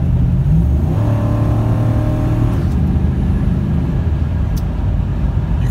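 Ford F-150 pickup's engine pulling under throttle at highway speed, heard from inside the cab over steady road rumble. A clear engine note stands out for a couple of seconds, and the revs climb as the 4R70W automatic kicks down. The owner takes this as the transmission running perfectly.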